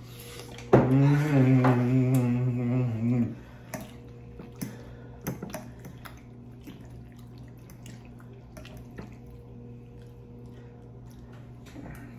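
A person hums a long 'mmm' with a mouthful of food, lasting about two and a half seconds. After it come quiet eating sounds with a few light cutlery clicks.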